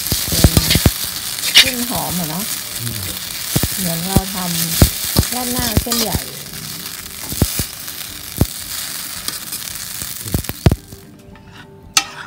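Spaghetti sizzling as it is stir-fried in a hot wok, with metal tongs clicking and scraping against the pan. The sizzle stops suddenly about eleven seconds in.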